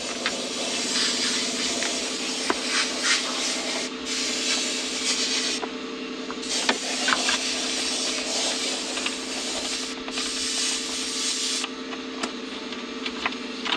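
Hand screwdriver turning screws into a plastic mounting bracket, scraping and rubbing with small clicks, over a steady hum.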